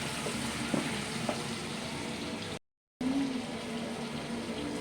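Food frying in a pan with a steady sizzle, which cuts out completely for a moment about halfway through and then carries on.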